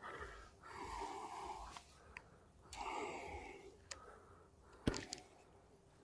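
A man breathing out heavily twice, short breathy huffs, with a few faint sharp clicks of handled gear, the loudest about five seconds in.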